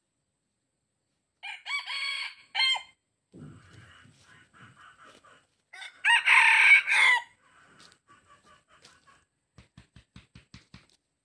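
Red junglefowl roosters crowing twice: a short crow about a second and a half in, then a louder crow about six seconds in, with softer clucking between them. A run of faint quick ticks comes near the end.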